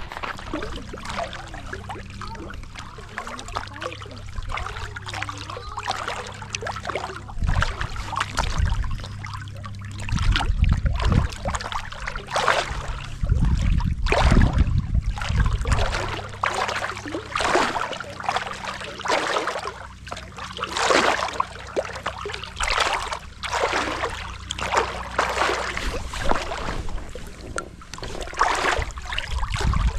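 Water splashing in repeated strokes about every one to two seconds as a small one-person pontoon boat is moved through a lake, with a low steady hum underneath for the first two-thirds.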